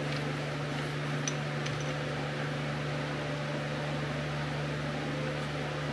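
Steady fan-like mechanical hum with a constant low tone, and a couple of faint light clicks about a second and a half in.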